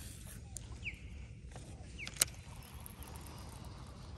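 Quiet outdoor background with a couple of short bird chirps and one sharp click a little over two seconds in.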